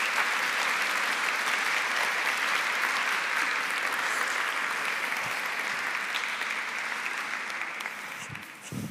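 Audience applauding steadily in a large hall, then dying away near the end.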